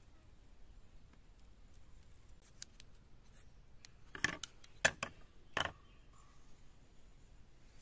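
Three hard clacks, about half a second apart, as coconut-shell spoons with bamboo handles are set down into coconut-shell bowls, with a few lighter taps of shell on shell just before.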